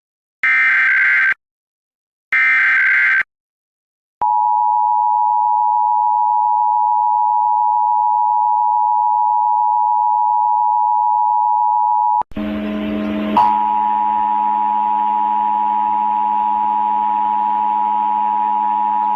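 Emergency Alert System signal: two short, harsh bursts of SAME header data, then the two-tone attention signal held steadily for about eight seconds. After a brief break the attention tone comes back over a low steady hum.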